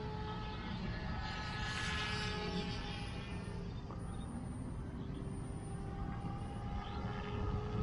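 Omphobby M4 electric RC helicopter in flight: a steady whine from its brushless motor and spinning rotor, over a low rumble.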